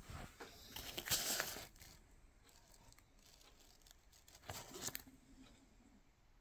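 Plastic sleeves of a CD binder rustling and crinkling as it is handled, loudest about a second in. A shorter scraping rustle follows near the end as a disc is slid out of its plastic sleeve.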